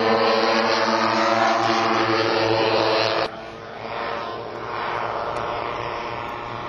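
Four chainsaw-based two-stroke engines of a large model B-29 bomber running in flight, a steady buzz of several overlapping engine tones. A little over three seconds in the sound drops sharply in level and goes on fainter.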